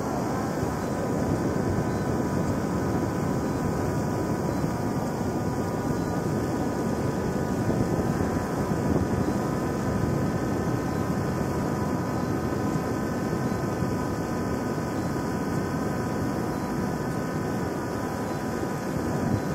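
Multirotor drone hovering close by, its propellers giving a steady, even whine over a constant rushing background noise.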